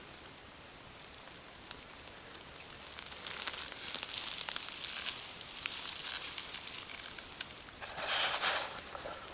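Garden fork digging into a potato hill: crackly scraping and rustling of loose soil and plants begins about three seconds in, with a short louder burst of scraping soil near the end.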